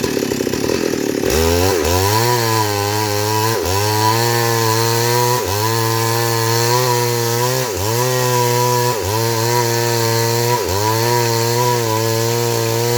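Two-stroke chainsaw engine: it runs unevenly at low revs, then opens up about a second in to a high, steady whine. It keeps cutting at full throttle, with the revs dipping and recovering every second or two as the chain bites into the wood.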